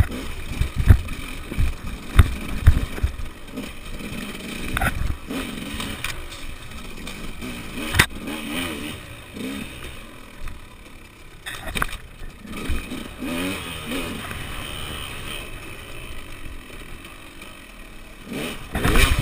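Enduro dirt bike engine running and revving up and down over rough ground, the pitch rising and falling as the throttle is worked. Thumps and clatter from the bike hitting rocks come several times in the first few seconds, and there is one sharp knock about eight seconds in.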